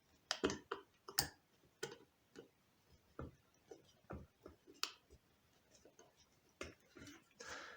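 Faint, irregular metal clicks and ticks from the screwdriver tool of a homemade folding knife being worked and handled, about one to three clicks a second.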